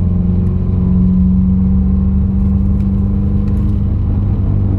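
Subaru WRX's turbocharged flat-four engine running with a steady drone while the car drives along. The driver says something is not right with it: he reports a lot of vibration, and a misfire was logged on cylinder 1.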